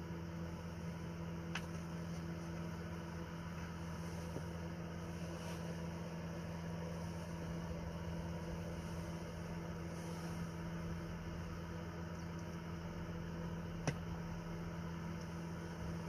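A steady low mechanical hum with two short clicks, one about a second and a half in and one near the end.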